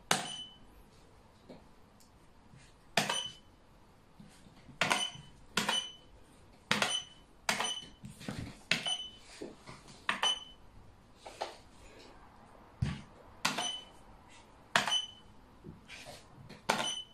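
Xiangqi pieces clacked down onto the board one move after another: about fifteen sharp clacks, each with a brief ringing tone, spaced roughly a second apart with a few longer pauses.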